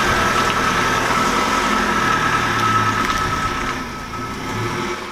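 Vauxhall Vivaro van's engine running as the van drives off, growing quieter over the last second or so. A thin steady whine sits above the engine sound.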